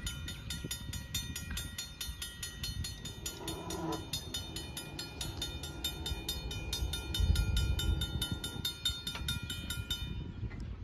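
Railroad grade-crossing warning bell ringing rapidly and evenly, about four to five strokes a second, as the crossing gates lower to warn of an approaching train. The bell stops about ten seconds in, once the gates are down, leaving a low rumbling noise.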